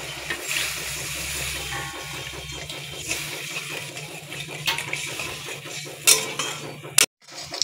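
Water poured into a hot kadai of fried spice paste, hissing, then a metal spatula scraping and clinking against the wok as the water is stirred into the gravy, with a few sharp knocks near the end.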